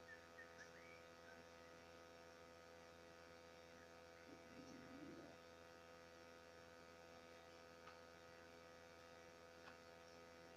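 Near silence: a faint, steady electrical hum made of many evenly spaced tones, with a brief faint murmur about halfway through.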